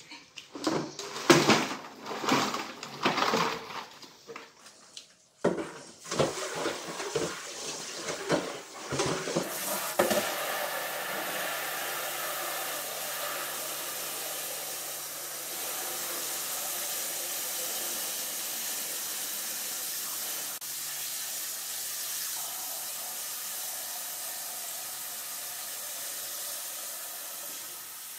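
Live blue crabs and plastic basins clattering and knocking as the crabs are tipped from one basin into another. About ten seconds in, a kitchen tap starts running steadily into a plastic basin in the sink, for washing the crabs.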